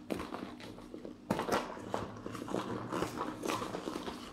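A sealed 15-litre roll-top dry bag rustling and crinkling in irregular crackles as it is handled and squeezed. The crackles grow denser and louder after about a second. The rolled, buckled top holds the air inside, with no hiss of air escaping.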